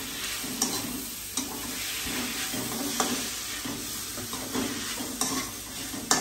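Chopped vegetables stir-frying in a steel kadhai (wok) over a gas flame: a steady sizzle, with the metal spoon scraping and clinking against the pan now and then as they are stirred.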